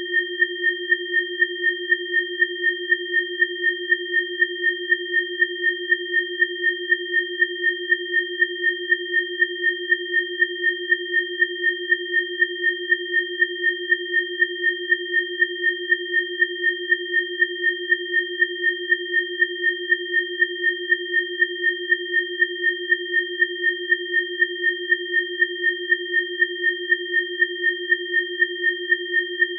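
Electronically generated sine tones of a biofrequency session: one low tone and two higher, thinner tones held steady together, pulsing evenly in loudness about three times a second.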